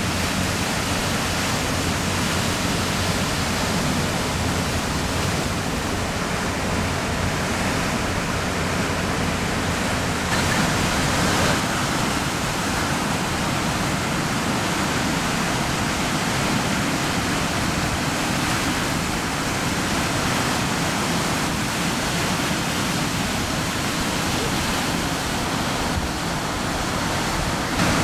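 Steady rush of ocean surf breaking, swelling a little about ten seconds in.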